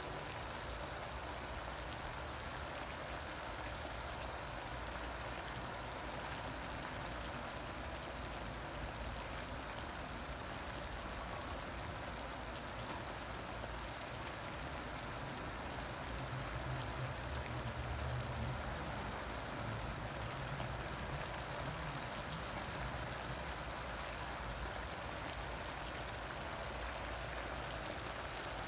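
Chicken drumsticks simmering in a pan of bubbling coconut braising sauce: a steady sizzle and bubbling, over a low steady hum.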